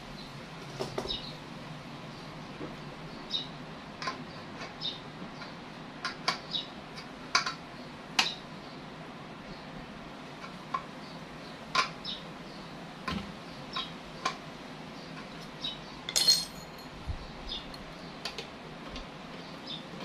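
Irregular light metallic clinks and taps of hand tools and parts being handled, over a steady low hiss, with a louder clatter about sixteen seconds in.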